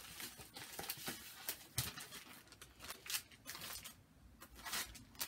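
Paper rustling and handling noise: a paper pattern chart being handled, a string of short irregular crinkles and scrapes.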